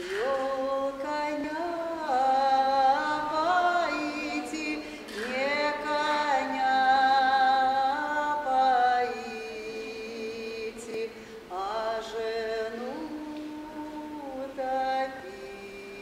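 A woman singing unaccompanied in a slow, sad Russian folk ballad. She draws each syllable out into long held notes, the melody stepping up and down, with short pauses between phrases.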